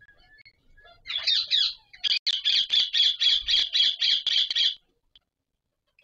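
Indian ringneck parrot squawking during mating. A few harsh calls start about a second in, then run into a rapid, even series of loud squawks, about four a second, which stops shortly before the end.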